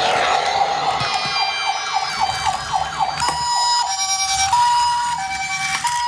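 Electronic siren of a toy ambulance minicar: quick repeated falling sweeps, switching about three seconds in to a two-tone hi-lo ambulance siren.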